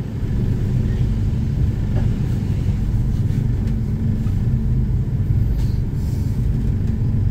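Diesel train engine idling, heard from inside the driver's cab: a steady low rumble with a held hum.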